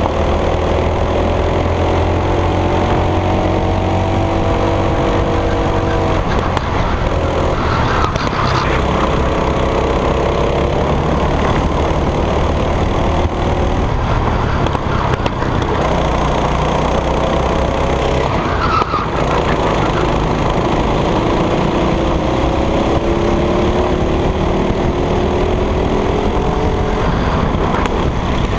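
Go-kart engine at racing speed, its pitch climbing steadily along each straight and dropping off sharply as the driver lifts for a corner, about six seconds in, at about nineteen seconds, and again near the end. A steady rush of wind and road noise runs underneath.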